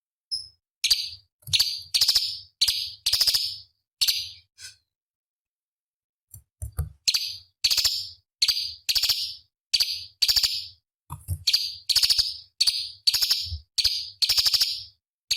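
Cucak cungkok (a leafbird) calling in a run of short, sharp, buzzy notes, about two a second. There is a pause of about two seconds partway through, after which the notes come again thick and fast.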